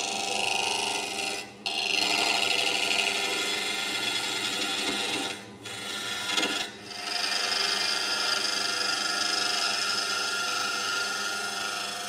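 A gouge cutting cedar of Lebanon spinning on a wood lathe, shavings coming off, with the lathe's steady hum underneath. The cut breaks off briefly three times.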